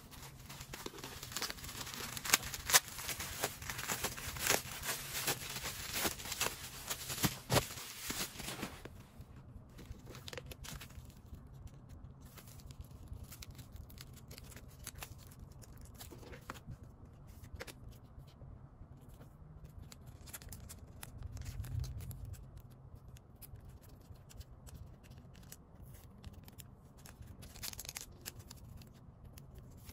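Bubble-wrap mailer crinkling and rustling as it is handled and opened, with many sharp crackles for about nine seconds. After that, quieter occasional rustles and soft clicks of a cardboard album digipack and plastic-sleeved photocards being handled.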